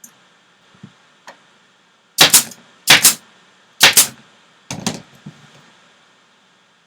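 Staple gun firing four times, each shot a quick double crack, as fabric is stapled to a wooden valance board. A few faint clicks of handling come before the shots.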